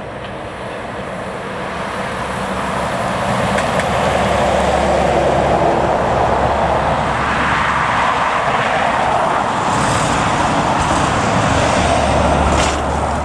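Jet airliner's engines passing close by: a loud, steady rush that builds over the first few seconds, holds, and starts to fade right at the end.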